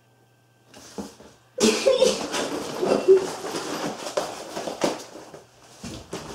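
Rustling and handling noise of a mask being pulled over a head and tugged into place, starting faintly and turning loud and scratchy about a second and a half in, with a few light knocks.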